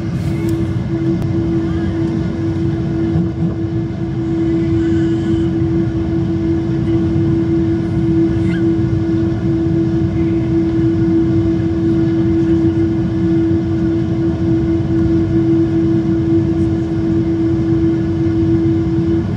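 Cabin noise inside a Boeing 777-300 on the ground: the idling jet engines give a steady hum over a low rumble, growing slightly louder about four seconds in.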